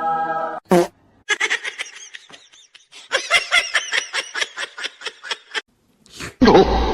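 A person laughing in long runs of quick, breathy bursts, with a loud thump near the end.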